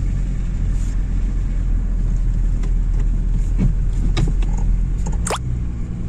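Car cabin noise while driving: the engine and road make a steady low rumble, with a few brief clicks and a short squeak in the second half.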